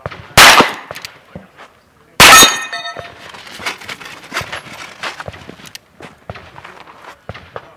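Two shots from a Schofield single-action revolver, about two seconds apart, the second followed by the ring of a hit steel target. Lighter clicks and knocks follow.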